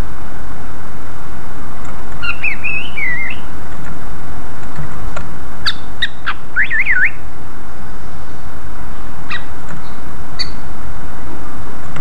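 Cucak ijo (green leafbird) singing twice in short warbled bursts of quick, bending whistled notes, each about a second long, with a few sharp single chip notes near the end. Under the song runs a loud, steady rushing noise.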